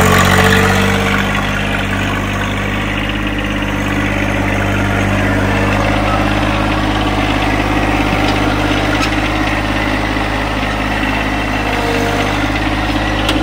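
A John Deere sub-compact tractor's diesel engine running at a steady speed as the tractor drives along with a load of boards on its front loader forks.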